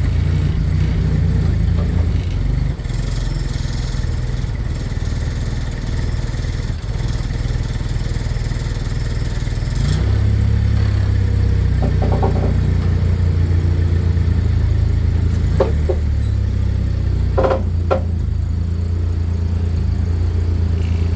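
Large truck engine running steadily; about ten seconds in its sound gets fuller and louder, as under more load. A few short higher-pitched squeaks come in the second half.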